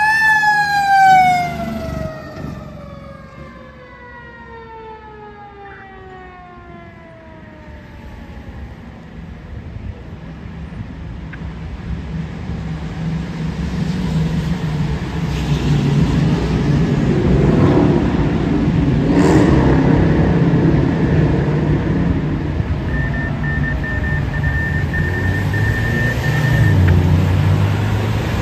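Fire engine siren sweeping up once and then winding down slowly in pitch over about ten seconds as the engine pulls away. Then the rumble of street traffic grows louder, with a vehicle passing close about two-thirds of the way in.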